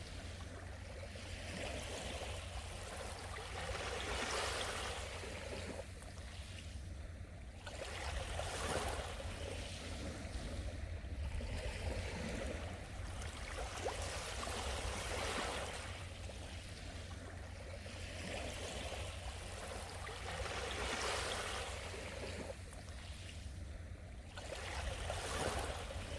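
Sea waves washing onto the shore, a rushing noise that swells and falls back every few seconds, over a steady low rumble.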